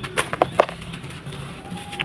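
Dry sand-cement crumbling in a tub: three or four sharp gritty crunches in quick succession in the first half-second or so.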